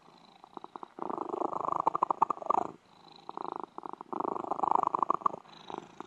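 A cat purring close up, in runs of a second or two with short breaks between them.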